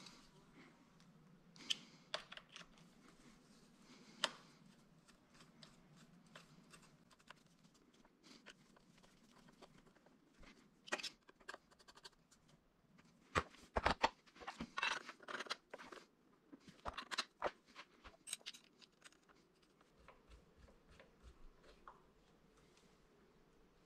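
Scattered clicks, scrapes and light rattles of screws being turned into the end of a sound bar with a hand screwdriver, and of small hardware being handled. There is a busier stretch of clicking and scratching a little past the middle.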